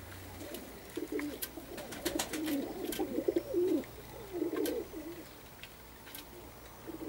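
Perm grivun pigeons cooing: rolling, warbling coos from about a second in until near five seconds, with a few sharp clicks over them.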